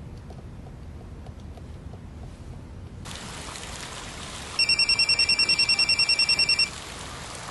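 Telephone ringing: a loud, rapid electronic trill on two high tones, lasting about two seconds from about four and a half seconds in, over a steady hiss that begins about three seconds in.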